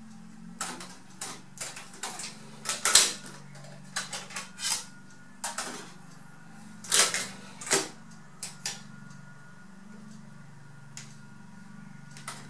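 Marantz CD-73 CD player's disc loader being opened and closed: a run of short mechanical clicks and plastic clatters, loudest about three and seven seconds in.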